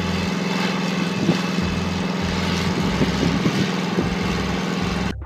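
Small engine of a homemade helicopter running at a steady idle, a constant hum that cuts off suddenly near the end.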